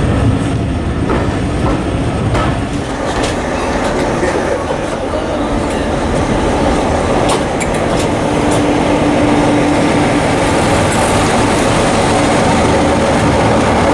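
Passenger train rolling slowly through a station, heard from on board, its wheels clicking over the rail joints. A steady hum comes in for a couple of seconds about eight seconds in.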